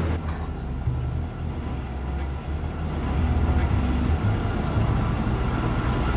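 Heavy diesel construction machinery running on an excavation site: a low, steady engine rumble that dips a little and then grows louder about halfway through.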